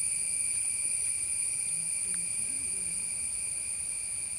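Steady, shrill chorus of forest insects, a continuous high-pitched drone at several fixed pitches.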